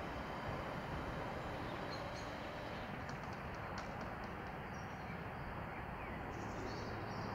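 Steady outdoor background noise, with faint high chirps and ticks about three seconds in.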